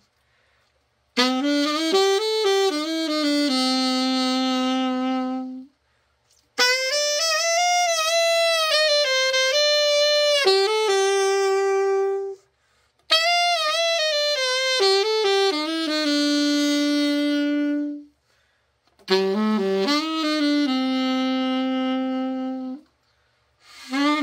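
Selmer Super Action 80 Series II alto saxophone being play-tested after a full overhaul: four short melodic phrases, each ending on a held note, with brief silences between them and a fifth phrase starting near the end.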